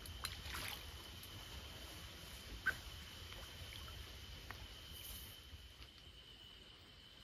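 Faint handling noises, rustling and scattered clicks, from an angler working a landing net holding a grass carp, with one sharper click about two and a half seconds in. A steady thin high tone sounds underneath.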